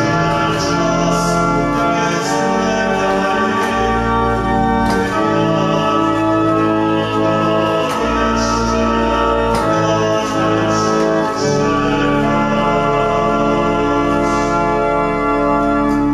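Church organ playing sustained chords over a changing bass line.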